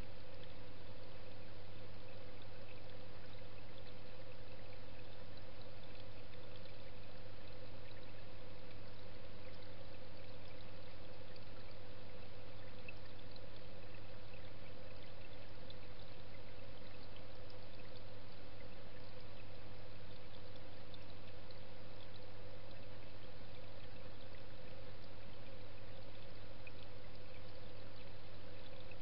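Steady rush of circulating pond water with a constant low hum, heard underwater from the pond's pump and pipework, unchanging throughout.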